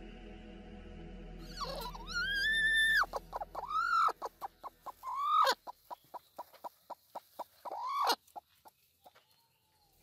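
Sitting hen squawking and clucking as a hand reaches under her on the nest: one long drawn-out squawk, then three shorter rising-and-falling squawks with a run of quick short clucks between them.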